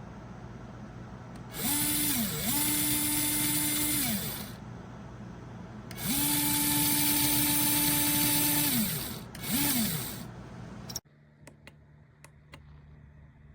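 Small cordless 4V stick screwdriver motor and gearbox spinning in four separate runs, each rising to a steady whir and winding down; the third run is the longest. The whirring stops suddenly, leaving a few faint ticks near the end.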